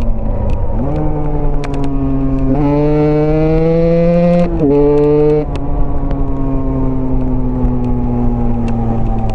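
Husqvarna dirt-bike engine running under way, its revs jumping and climbing through gear changes in the first half. About halfway through the revs drop and then fall slowly and steadily as the bike rolls off the throttle.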